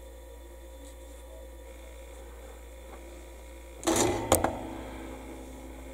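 Low steady hum, then about four seconds in a short scuffle and one sharp click as a plastic scale model and its brush are handled on the workbench.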